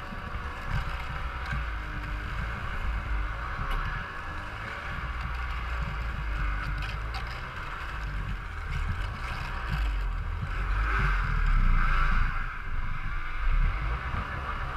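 Ski-Doo Summit 800X snowmobile's two-stroke engine running under way along a trail, with a steady low rumble and a rushing noise from the ride. It gets louder about eleven seconds in.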